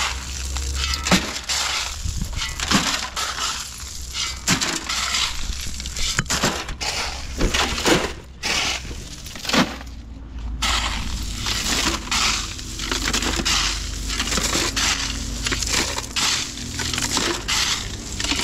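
Crushed-stone ballast being shovelled from a pile into a steel wheelbarrow, the stones crunching and rattling into the pan again and again at an uneven pace.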